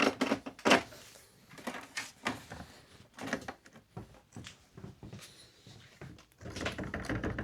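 Irregular clicks, knocks and scrapes as the Inmotion V9's hub motor is pushed back into the wheel's shell, with a longer stretch of rubbing and rustling near the end.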